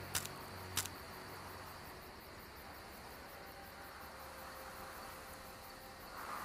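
Crickets chirping steadily, with two short sharp clicks in the first second.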